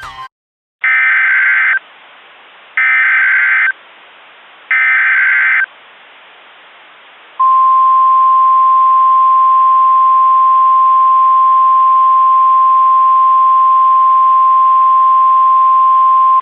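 Emergency Alert System SAME header: three one-second bursts of warbling data tones, a second apart, over a steady hiss. Then the single steady 1050 Hz NOAA Weather Radio warning tone sounds for about nine seconds. Together they mark an EAS activation for a tornado warning.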